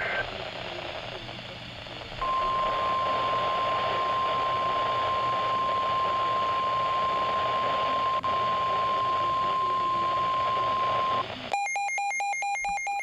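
NOAA Weather Radio broadcast heard through a receiver's speaker over hissing static. It opens with the tail of a SAME data burst. From about two seconds in, the steady 1050 Hz warning alarm tone is held for about nine seconds, signalling that a warning message follows. Near the end comes a brief run of rapid electronic beeps.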